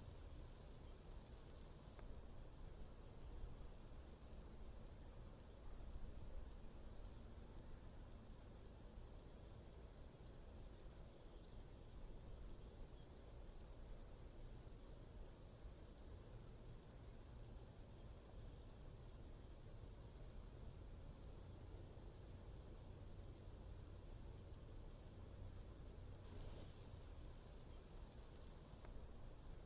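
Faint chorus of crickets: a steady high-pitched trill with a quicker, evenly pulsing chirping just below it, over a low background hiss.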